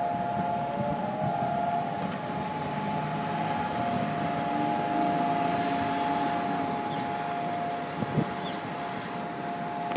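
Israeli Yom HaZikaron memorial siren sounding one long, steady, unwavering tone, the nationwide signal for standing in silence, over a low rumble of traffic. A brief knock comes about eight seconds in.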